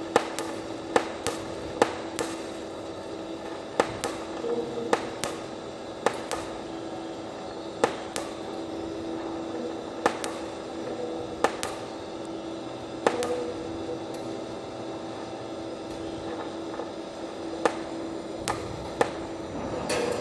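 TIG (gas tungsten arc) welding arc running with a hand-fed filler rod: a steady hum with irregular sharp clicks and pops about once a second.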